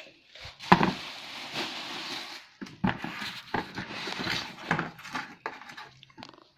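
Packing tape on a cardboard box being cut and scraped open with a scissors blade, with irregular scraping, rustling and sharp clicks of cardboard being handled, the loudest about a second in.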